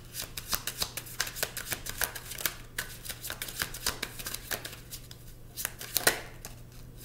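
A deck of oracle cards being shuffled by hand: a quick, irregular run of crisp card clicks and riffles, with a louder snap about six seconds in.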